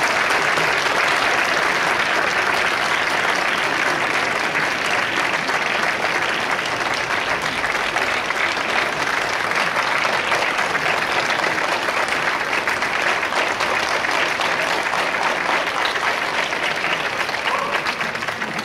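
A large crowd applauding continuously, the clapping dying away near the end.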